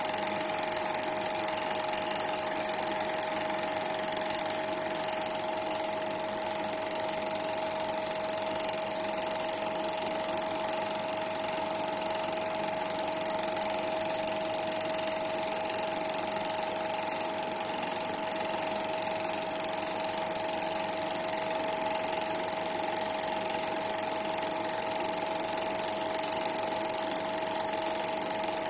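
Cine film projector running, its motor and film transport making a steady mechanical whir with a constant mid-pitched hum and a high whine.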